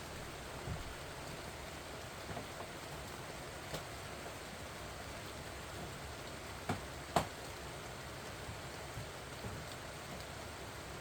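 Rain falling on pumpkin vines: a steady hiss of rain on leaves, with a few louder single drops striking close by, two of them just over six and a half seconds in.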